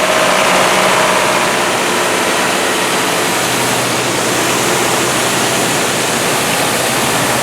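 Portable drive-over grain pit and grain auger running while unloading soybeans: a steady rushing noise of grain on the move, with a low, even engine hum beneath it.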